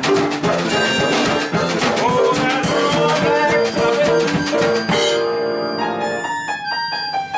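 Live blues band playing: a small drum kit with snare and cymbals keeps a beat under a held-note melody line. About five seconds in the drumming drops back and the held notes carry on.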